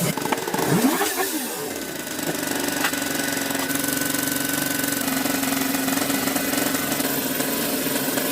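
Car engine running: the pitch rises and falls a few times in the first two seconds as it is revved, then it settles into a steady drone.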